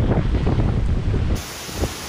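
Hurricane-force wind buffeting the microphone in a low, gusting rumble, with heavy rain hissing. About 1.4 s in the rumble cuts off abruptly, leaving a quieter hiss of wind and rain.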